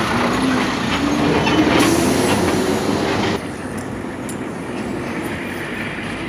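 A heavy vehicle passing on the adjacent road: a rumbling engine note that dips and then climbs in pitch, with a hiss of traffic noise that drops away sharply about three and a half seconds in, leaving a quieter steady traffic rumble.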